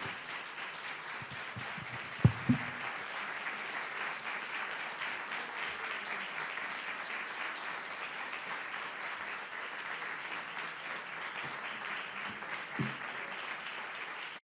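Audience applauding steadily. Two loud knocks come about two seconds in and another comes near the end, and the applause cuts off suddenly.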